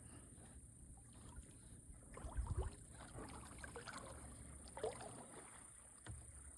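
Kayak paddle dipping into the water, with drips and small splashes of water around the hull. A low rumble runs underneath, with a louder thump about two and a half seconds in.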